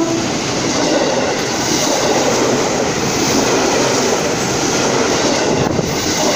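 Former JR East 205 series commuter electric train passing at close range: the steady, loud running noise of its wheels and running gear on the rails, with no let-up as the cars go by.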